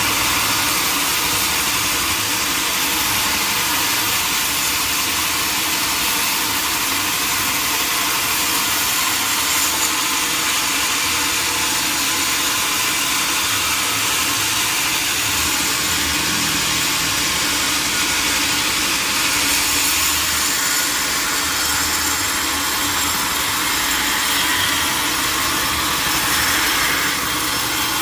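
Sawmill saw and its engine running, with a steady, unbroken noise that holds at one level throughout.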